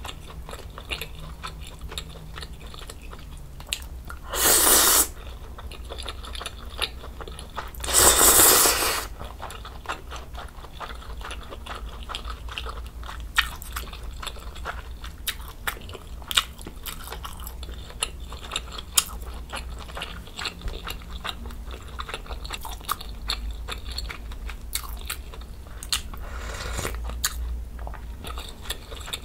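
Close-miked mouth sounds of eating budae jjigae: soft chewing of ham and ramen noodles with many small wet clicks. There are two loud slurps, each about a second long, about four and eight seconds in, and a softer slurp near the end.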